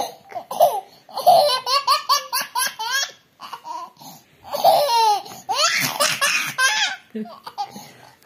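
A baby laughing heartily in long fits of quick, repeated peals, with a short lull about three seconds in.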